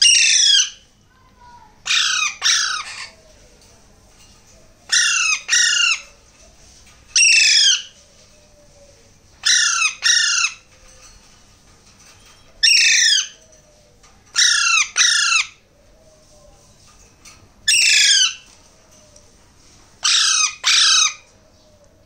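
Alexandrine parakeet chicks giving loud, harsh begging squawks while being spoon-fed, about half a second each, singly or in quick pairs, every two to three seconds.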